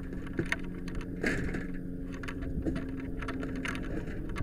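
Steady low hum of a fire engine running, with scattered short knocks and clicks over it.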